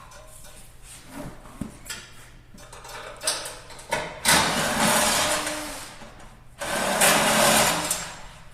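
Hand-held power driver running in two bursts of about a second and a half each, backing out the bolts of a motorcycle shipping crate, with a few knocks before them.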